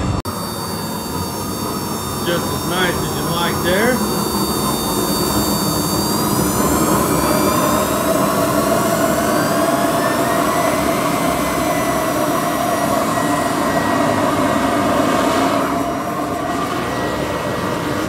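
Blower-fed gas burner running: a steady rush of air and flame under the blower motor's whine. The whine climbs in pitch partway through as the blower speeds up.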